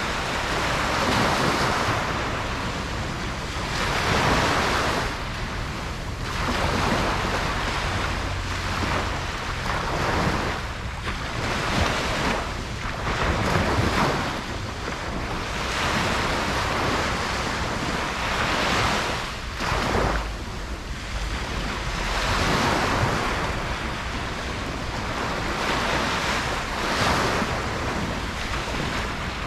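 Ocean surf breaking on a beach: a continuous hiss of waves that swells and ebbs every few seconds, with a low rumble underneath.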